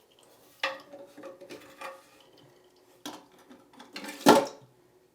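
Plastic parts of a Fluidmaster 400 toilet fill valve clicking and knocking as they are handled, while the new rubber seal is pushed into place on the valve cap. There are several separate knocks, and the loudest comes about four seconds in.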